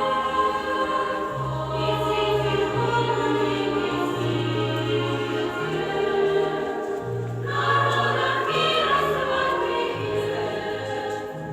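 Background music with a choir singing over a steady bass line; it cuts off just after the end.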